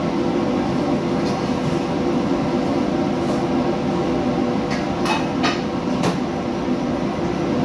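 Steady drone of a commercial kitchen's exhaust hood and wok burner. A few sharp metal clinks of a ladle against a wok come mostly between about five and six seconds in.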